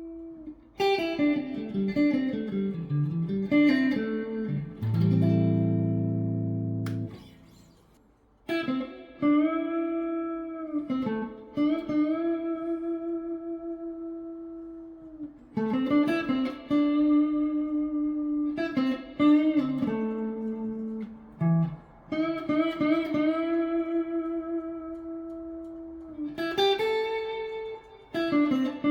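Effonia Stellar electric guitar with neodymium pickups, played with a fairly clean tone. A quick falling run of notes leads into a chord held for about two seconds, followed by a slow melodic line of long, sustained single notes with string bends.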